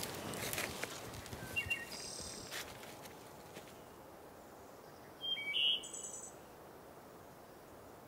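Quiet woodland ambience: small songbirds give a few short high chirps, the loudest a brief cluster about five seconds in, over a faint steady hiss. A few soft rustles come in the first three seconds.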